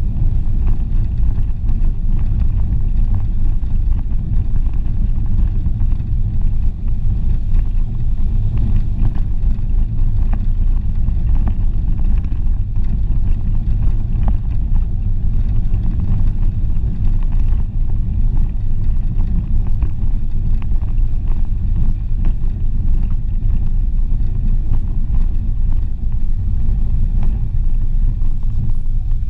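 Renault Clio driving over a rough dirt and gravel track, heard from outside the car: a steady low rumble of the car and its tyres on the uneven surface, with scattered small knocks.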